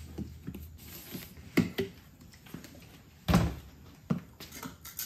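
A few short knocks and clunks as a plastic gas can is handled at a portable generator's fuel filler, the loudest about three seconds in.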